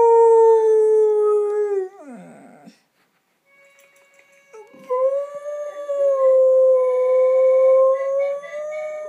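Dog howling in long held notes. The first howl sinks slightly in pitch and breaks off about two seconds in with a short falling slide. After a brief pause, a second long howl begins around five seconds in.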